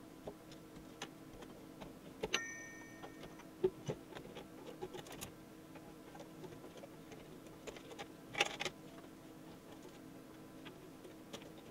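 Handling noise from taking apart a metal electronics enclosure: light clicks and knocks as the aluminium plate carrying the circuit boards is freed and lifted out, with a short metallic ring about two seconds in and a louder clatter a little past the middle. A faint steady hum runs underneath.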